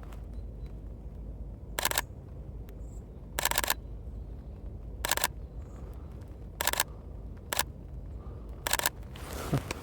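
Sony A6400 mirrorless camera's shutter firing in six short bursts of continuous shooting, a second or two apart, some bursts longer than others, over a low steady outdoor rumble.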